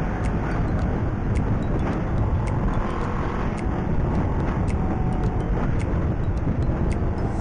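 Motorcycle on the move, with steady engine and wind rumble and faint regular ticks about once a second.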